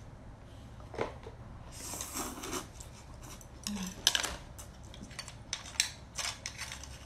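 Chopsticks and scallop shells clicking and scraping against each other and the serving tray: a string of short, irregular clicks and knocks, with a brief scrape about two seconds in.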